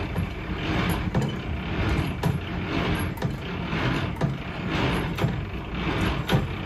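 Semi-trailer landing-leg crank being wound by hand to lower the legs, its gearbox whirring and clicking in repeated turns about once a second. A steady low engine hum from the truck runs underneath.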